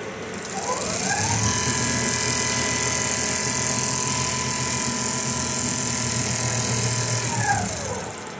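Computerised rotating-head sewing machine stitching heavy quilted jacket fabric. Its motors rise in pitch as it speeds up, run at a steady whine with a high hiss for several seconds, then fall in pitch and slow to a stop near the end.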